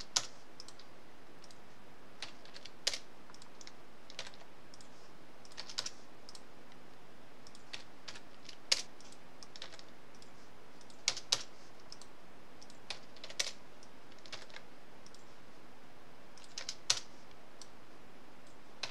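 Sparse, irregular clicks of computer keyboard keys and mouse buttons, one every second or two and sometimes in quick pairs, over a faint steady room hiss.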